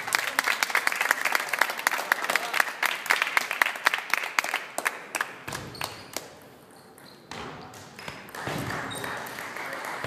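Spectators clapping and applauding between points at a table tennis match, a dense patter of hand claps that dies away about five seconds in, leaving a quieter hall murmur.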